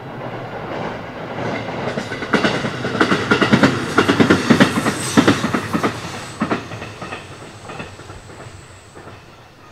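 JR East Kiha E130 diesel railcar passing, its wheels clacking over the rail joints. The sound builds to a peak in the middle and then fades as it runs on by.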